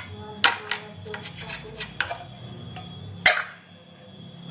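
Small aluminium cake mould knocked against a metal baking tray to turn out a baked cake: two sharp metal knocks, about half a second and about three seconds in, with lighter clicks and taps between.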